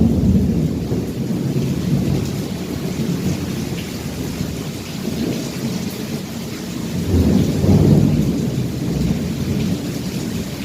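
Thunder rumbling over steady heavy rain: a deep rumble that fades over the first few seconds, then a second rumble swells up about seven seconds in.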